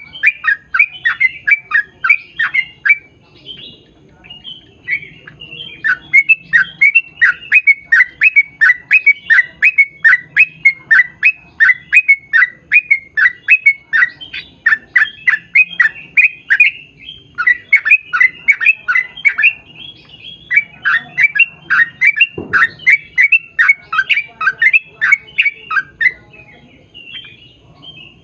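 Yellow-vented bulbul (trucukan) singing a long rapid series of quick downward-slurred notes, about three to four a second, in long runs broken by a few short pauses.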